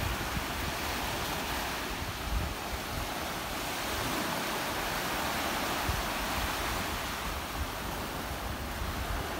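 Small sea waves breaking and washing up the shore in a steady surf rush, with wind buffeting the microphone in low, irregular thumps.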